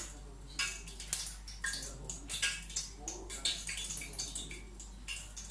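Hands dipping a floured chicken piece into a bowl of yogurt water and working it into a plate of flour: wet squishing and splashing, then soft rubbing and patting strokes at about two a second.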